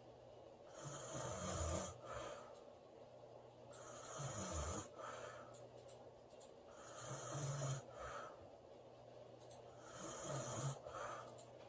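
A woman snoring, one rasping snore about every three seconds, four in all.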